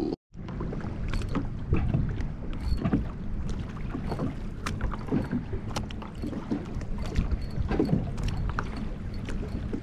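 Small choppy waves lapping and slapping irregularly against a plastic kayak hull, over steady wind noise.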